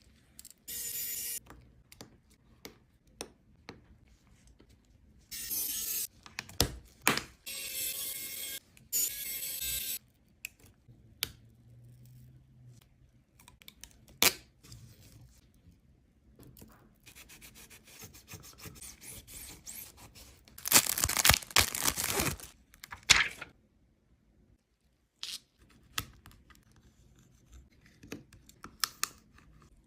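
Hands and small tools working on the phone and its parts: scattered sharp clicks and taps, rubbing and scraping, and several short noisy bursts like tearing or hissing. The longest and loudest burst comes about three-quarters of the way through.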